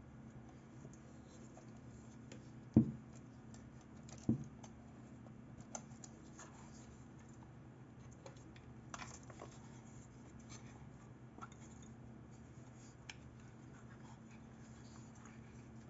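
A Praktica 35 mm SLR film camera being handled in gloved hands, with faint scratching and small metallic clicks as its rewind knob is worked and pulled up and the back cover is opened. Two dull thumps stand out, about three and four seconds in.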